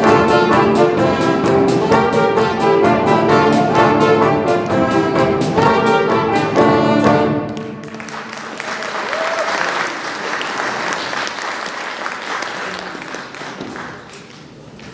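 Brass-led orchestral music with a steady beat, ending about halfway through; applause follows and gradually fades.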